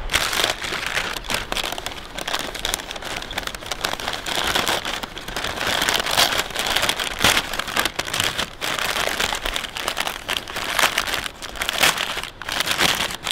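Glossy red wrapping paper crinkling and rustling as hands tear and fold it open from a box of pastries: a dense, continuous run of crackles.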